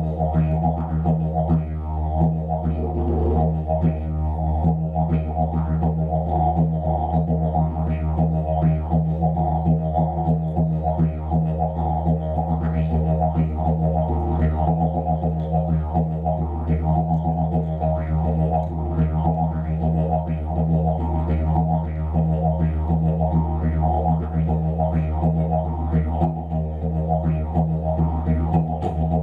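Didgeridoo played solo: a steady low drone held without a break by circular breathing, with a driving rhythm of overtone and voice accents laid over it.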